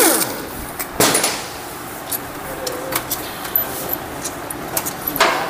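Sharp metallic clicks and clinks of hand tools on the 8 mm bolts of a Hero Passion Pro BS6 engine's magneto-side cover as they are loosened, several separate strikes spaced a second or two apart.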